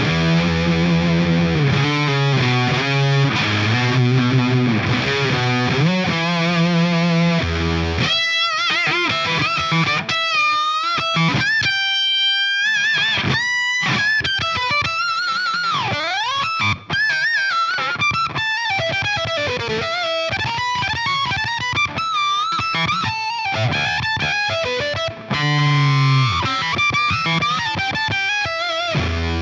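Electric guitar played through the Fractal Audio VP4's fuzz effect: a low, heavy riff first, then a single-note lead higher up with bends and vibrato, and the low riff again near the end.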